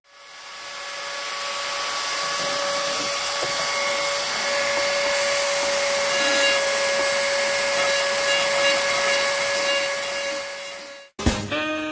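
Rotary multitool with a flexible-shaft handpiece and a coarse milling bit, spinning up and then running at a steady high whine as it routes into a wooden board. It cuts off abruptly just before the end, and music starts.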